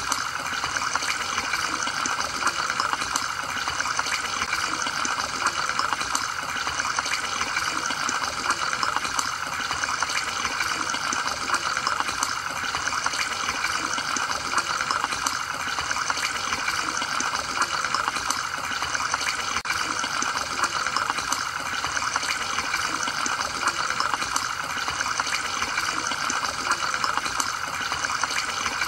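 Aquarium filter running: a steady bubbling, trickling rush of water with many small pops.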